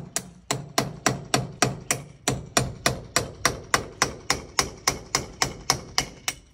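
A fast, evenly timed series of sharp knocks, about four a second, each with a short pitched ring, stopping abruptly near the end.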